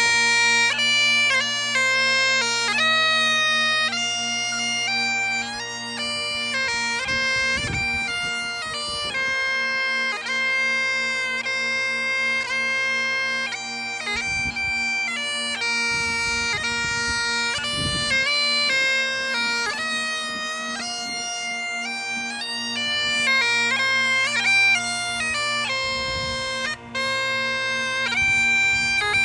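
Bagpipes playing a melody: the chanter steps from note to note over steady, unchanging drones.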